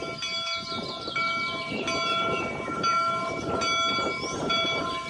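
Steam locomotive, the Union Pacific No. 119 replica, running with its chime whistle sounding in a string of short blasts over the rough chuff of its exhaust.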